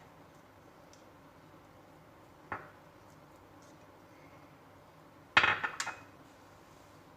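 Light clinks and knocks of kitchen utensils against dishware: a single knock about two and a half seconds in, then a quick cluster of clatter about five and a half seconds in, the loudest moment.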